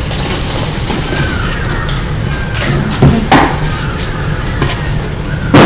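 Plastic juicer parts knocking and clicking together a few times, about three seconds in and again near the end, as they are handled and fitted. A steady low rumble runs underneath.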